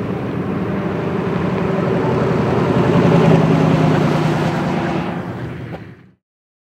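Car engine running, growing louder over about three seconds and then fading, before the sound cuts off abruptly about six seconds in.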